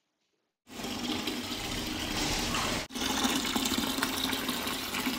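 Water from a flood-and-drain hydroponic system's black poly-pipe return line pouring and splashing into the water of the reservoir bucket, a steady rush that starts under a second in and breaks off for an instant about three seconds in.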